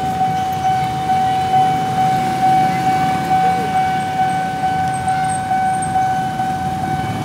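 Railway level-crossing warning alarm sounding a steady high electronic tone that pulses about twice a second while the barrier is down, with motorcycle engines idling underneath.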